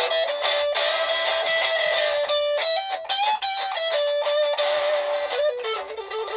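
Electric guitar playing a simple blues lick through a tiny Smokey pocket amplifier, over a guitar loop played back from a TC Electronic Ditto looper. Picked notes ring out, and the held lead note climbs in pitch about midway and comes back down.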